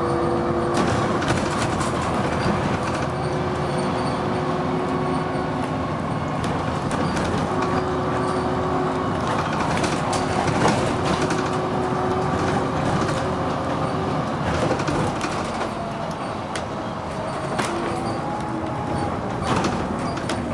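Dennis Arrow single-decker bus running under way. The engine and ZF gearbox give a steady drone with whining tones that slowly rise and fall in pitch, and short rattles come through it throughout.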